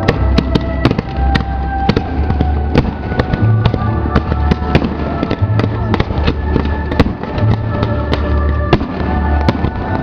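Fireworks bursting and crackling in quick succession over loud music with a bass beat pulsing about once a second.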